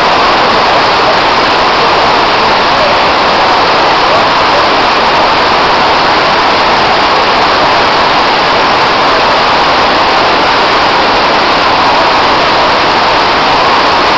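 Steady, loud rush of pumped water from an artificial standing-wave surf machine, an unbroken roar of water and pumps with no let-up.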